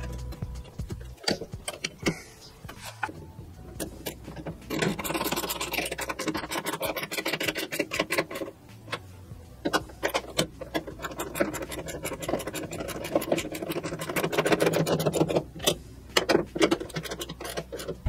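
Metal-on-metal clicks and clanks of hand tools and parts while a 1969 VW Beetle's pedal assembly is being fitted, irregular throughout and coming thick and fast in two stretches.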